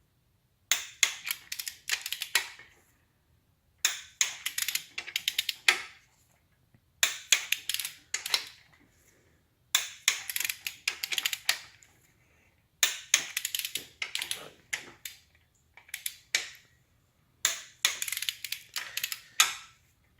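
Torque wrench ratcheting in bursts of quick metallic clicks, one burst about every three seconds, as the RB25DET bottom-end bolts are drawn down one after another to their final 52 Nm.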